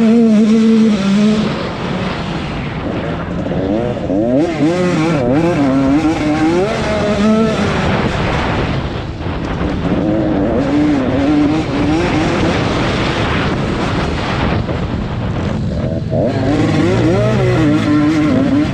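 Several velocross motorcycles racing on a dirt track, their engines revving up and dropping back in pitch over and over, overlapping one another.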